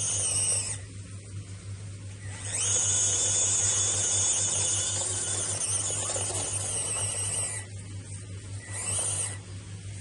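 Electric motor and gearbox of a 1:24-scale FMS Mogrich RC Unimog truck whining in bursts of throttle as it works up a muddy slope. There is a short burst at the start, a long one of about five seconds from about two and a half seconds in, and another short one near the end.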